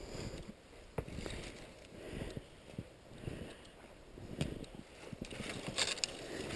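Footsteps through alder brush, with scattered crackles of twigs and dry branches and a sharp snap about a second in.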